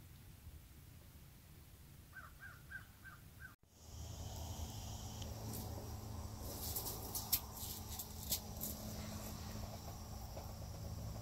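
A freshly caught lake whitefish flopping on snow-covered ice: a cluster of sharp slaps and ticks over a steady low hum. Earlier comes a short run of five quick chirps.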